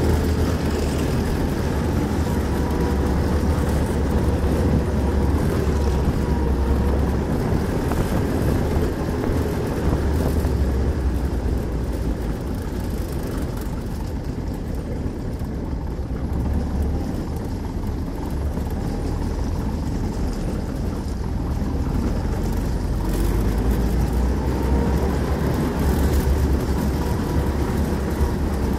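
NSU Kettenkrad HK101 half-track under way off road: its Opel four-cylinder petrol engine and tracked running gear give a steady low rumble with a faint whine. The whine fades midway and comes back rising near the end as speed picks up.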